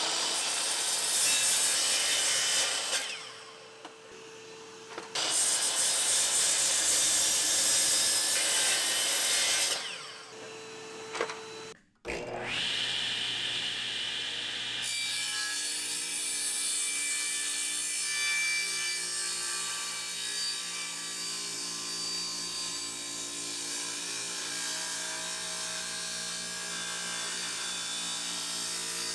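Electric miter saw cutting through a wooden 4x4, two cuts of about four seconds each with the motor dropping away between them. After a sudden break about twelve seconds in, a steadier, quieter machine hum with several held tones carries on.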